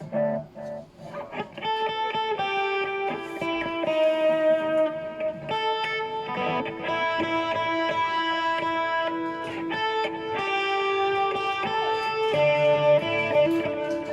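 Electric guitar played through a Boss GT-6 multi-effects processor, with the chorus and delay switched on. Sustained chords and single notes change every second or two.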